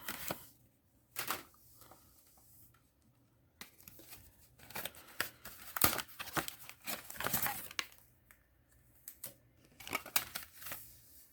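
Packaging being crinkled and torn by hand, in irregular bursts of crackling and rustling with short quiet gaps.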